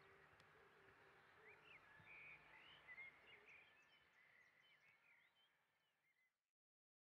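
Faint outdoor ambience with small birds chirping in short, quick calls, fading out to silence about six seconds in.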